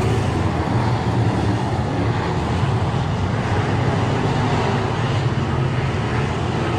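Dirt-track race car engine running hard under way, a steady, loud mix of engine and rushing noise with no letup.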